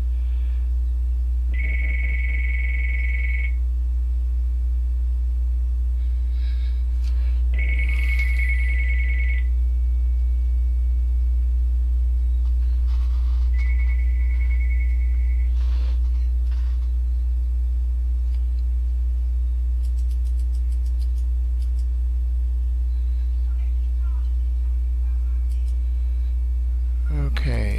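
An electronic telephone ringer rings three times, each ring about two seconds long with about four seconds between them, then stops. A loud, steady mains hum runs underneath throughout.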